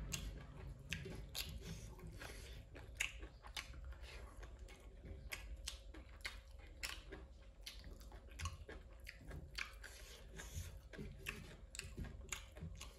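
A person chewing food close to the microphone: irregular wet mouth clicks and smacks, a few a second.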